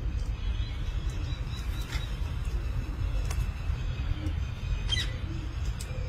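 Alexandrine parakeets giving a few short, high squeaks, the clearest about five seconds in, over a steady low rumble.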